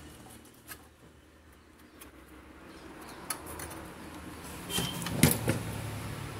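Light clicks and taps of a desoldered power transistor being worked free of a CRT TV's circuit board by hand, with the loudest cluster about five seconds in, over a faint low hum.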